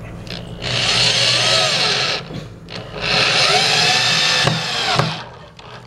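Power drill driving two screws through a wooden back panel into pallet-wood shelves. Each run lasts a second or two, its pitch rising and then sagging as the screw pulls in. A sharp knock comes just after the second run.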